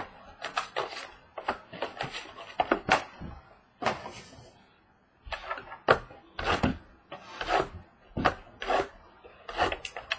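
Cardboard trading-card boxes being handled and opened on a wooden table: a quick, irregular run of taps, scrapes and rustles of card and wrapping.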